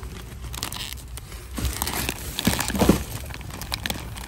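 Plastic shopping bags crinkling and rustling as groceries are handled and packed, with small knocks of items among them; loudest about two and a half to three seconds in.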